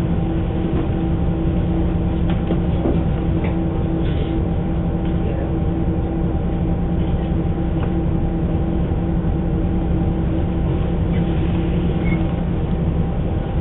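Diesel railcar's engine idling steadily, heard from inside the cabin while the train stands still, a level hum with a few faint ticks.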